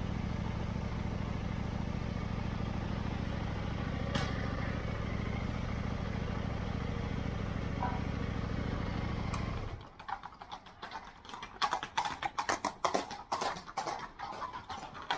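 A motor vehicle's engine idling steadily, cut off suddenly about ten seconds in. After it comes a rapid, irregular clatter of sharp knocks.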